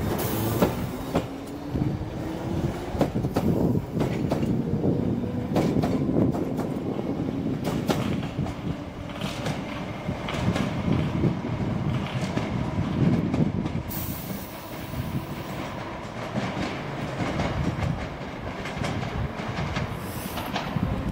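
London Underground train pulling out and accelerating away, its traction motors whining upward in pitch as it gets going. The wheels click rhythmically over the rail joints and give brief high squeals near the start, about two-thirds of the way through and again near the end.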